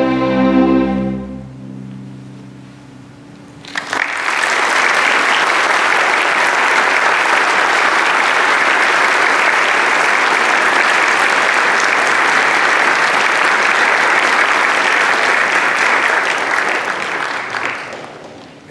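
A string orchestra holds its final chord, which stops about a second and a half in and rings off. After a short pause the audience breaks into applause that lasts about fourteen seconds and fades near the end.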